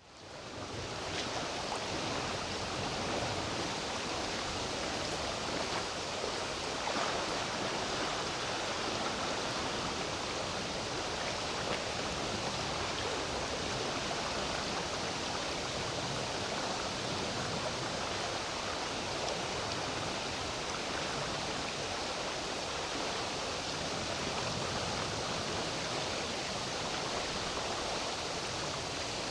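Steady rushing riverside ambience: flowing river water together with tree foliage rustling in a summer breeze. It fades in at the very start, then holds even.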